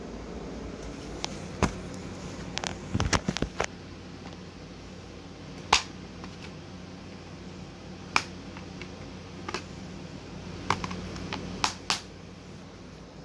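Plastic DVD case handled: a series of sharp clicks and snaps as the case is opened and the disc is pressed off its centre hub, the loudest snap about six seconds in. A low steady hum runs underneath.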